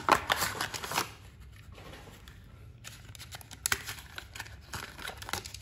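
A small cardboard toy box being opened by hand, with the paper packaging rustling and scraping. A burst of handling noise comes at the start, then scattered light clicks and scrapes as the small die-cast truck is slid out of its cardboard tray.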